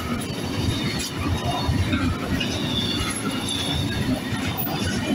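Intermodal freight train's container wagons rolling past close by: a steady rumble of wheels on the rails, with a faint thin wheel squeal in the middle.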